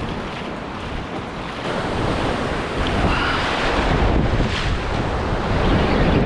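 Ocean surf washing on the shore with wind buffeting the microphone, rising and falling in surges and getting louder about two seconds in.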